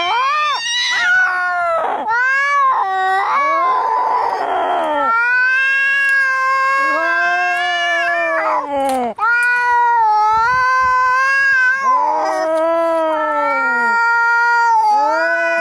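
Angry cats yowling and caterwauling in long, drawn-out, wavering calls, with a harsh hissing burst about four seconds in: the threat calls of cats squaring off to fight.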